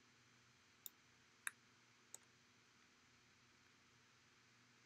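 Three faint, short computer clicks about half a second apart, over near silence with faint room hiss.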